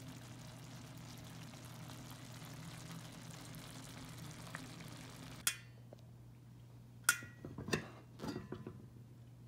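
Thick adobo sauce simmering in a stainless steel pot, a steady bubbling hiss over a low hum, which stops abruptly with a click about five and a half seconds in. Then a few sharp metallic clinks as the pot's stainless steel lid is handled.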